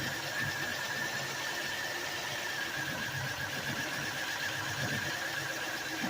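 A 1996 Chevrolet Lumina's engine idling rough, an uneven low running sound under a steady, slightly wavering high whine. The owner suspects dirty fuel injectors cause the rough idle.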